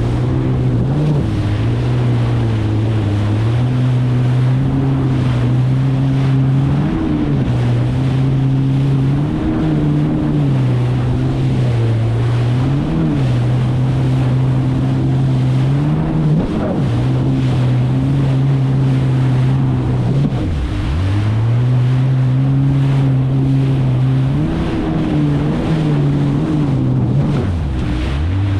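Kawasaki STX 160 jet ski's four-cylinder four-stroke engine running at a steady cruising speed over choppy water, with water splashing against the hull and wind on the microphone. The engine pitch dips sharply and recovers about two-thirds of the way through, and again near the end.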